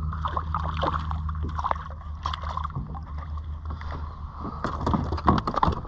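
Water splashing as a small snapper thrashes at the surface beside a plastic kayak and is lifted out on the line. Near the end comes a quick run of sharp knocks and rattles as it is handled aboard.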